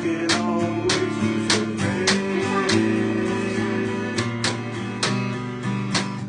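Instrumental break in a jug-band song: acoustic guitar strumming chords, with a washboard scraped on the beat, a little under two strokes a second.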